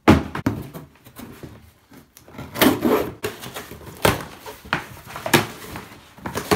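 A cardboard parcel box dropped onto a laminate floor with a thud, then its packing tape torn and cardboard flaps ripped open by hand in several short rips.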